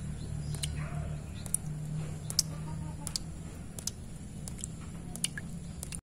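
Water drops falling into a shallow puddle, plinking at irregular intervals, about a dozen in a few seconds, over a low steady hum.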